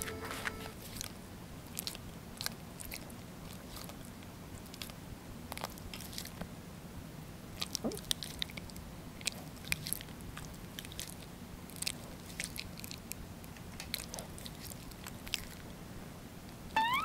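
A poodle licking its lips and muzzle: small wet smacking and clicking mouth sounds, scattered and irregular with short pauses between.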